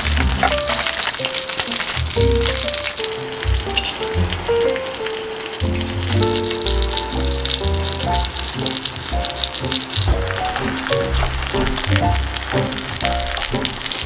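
Pork cutlets frying in shallow oil in a pan, a steady crackling sizzle, with background music carrying a melody and bass line.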